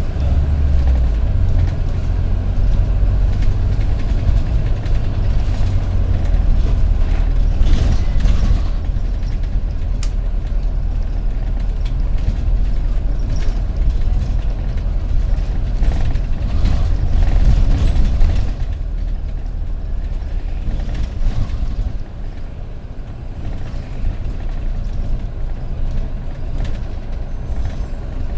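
Metroline bus VWH2142 on the move, heard from on board: a loud, steady engine and road rumble that eases off after about eighteen seconds, with a few short sharp noises along the way.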